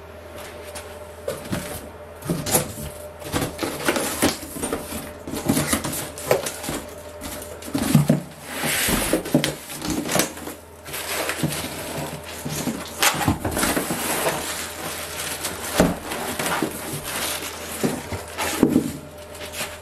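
Cardboard box being opened and unpacked by hand: an irregular run of cardboard rustling and scraping and plastic wrap crinkling, with a few sharp knocks.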